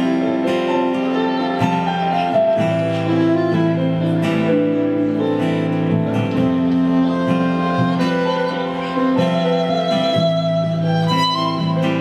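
Instrumental break of a slow acoustic song: acoustic guitar accompaniment with a held, sustained lead melody line over it.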